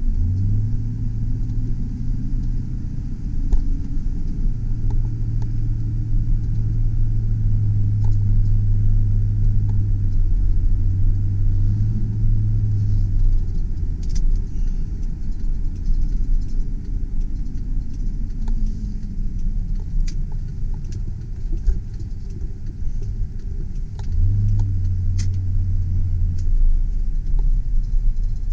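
2001 Chevrolet Silverado 2500 pickup truck being driven: a steady low engine drone with road rumble, the engine note falling away about two-thirds of the way through as the truck slows.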